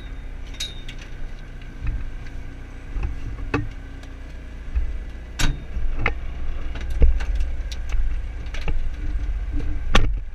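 Skoda Fabia TDI rally car's diesel engine idling steadily, heard inside the stripped cabin, with a series of sharp knocks and clinks from someone moving about in the seat, the loudest about halfway through and near the end.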